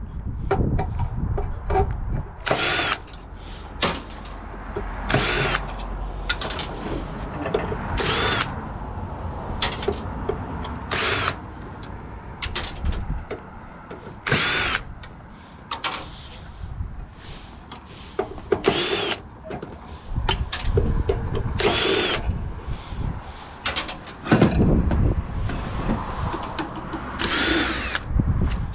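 Power drill driving out screws in many short bursts, the motor whine rising in pitch each time it spins up, with knocks and rattles between the bursts.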